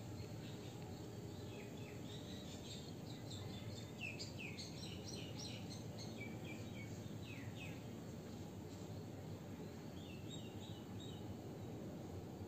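Outdoor ambience: a steady low background noise with birds chirping in quick series of short, often downward-sweeping notes, busiest in the first half and again briefly about ten seconds in.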